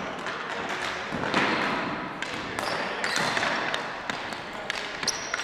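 Ball hockey play on a gymnasium's hardwood floor: plastic sticks and the ball clacking and knocking against the floor in a run of sharp, irregular taps, with the hum of the hall behind.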